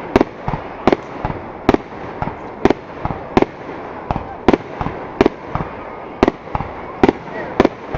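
Fireworks display: a quick run of sharp bangs, about one or two a second at uneven spacing, over a steady background haze.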